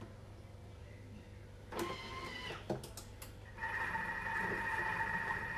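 Thermomix kitchen machine set to cook the soup: a short tone and a few clicks from its controls, then about three and a half seconds in its motor starts and runs with a steady whine.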